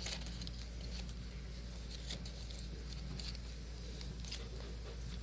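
Paper and tape being handled while building a paper airplane: scattered light taps and crinkles over a steady low hum.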